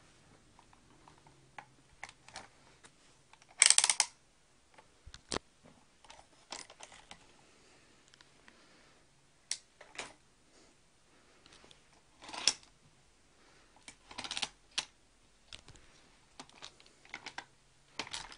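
Irregular clicks, taps and scrapes of plastic and metal parts being handled as a scope and bipod are fitted onto an airsoft sniper rifle's rail mounts. There are a few louder clatters, about four seconds in and again twice past the middle.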